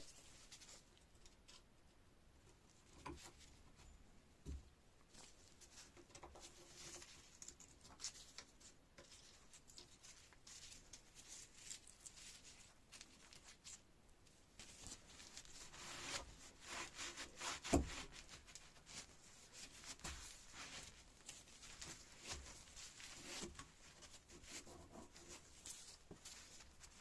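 Faint workshop handling sounds from taking apart an old hydraulic jack: scattered small clicks, scrapes and rubbing of tools on metal parts, busier after about fifteen seconds, with one sharper knock about eighteen seconds in.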